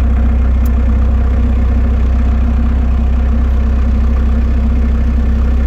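Bobcat 763 skid steer's diesel engine idling steadily, heard from inside the cab.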